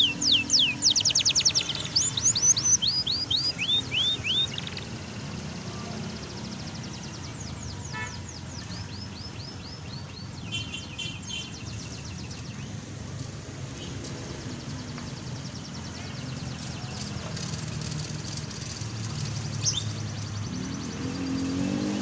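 Domestic canary singing: a loud fast trill of repeated falling whistled notes for about four seconds, then softer trills and a few scattered chirps. A steady low rumble of traffic runs underneath, and a vehicle rises in pitch as it approaches near the end.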